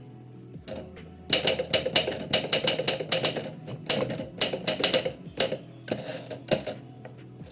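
Typewriter keys striking in fast runs of keystrokes, beginning about a second in and thinning to a few scattered strikes near the end.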